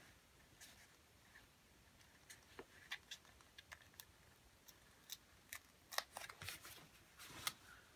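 Alphabet sticker sheet and its paper backing being handled as letter stickers are peeled off: faint scattered crinkles and ticks, gathering into a busier, louder run of crinkling near the end.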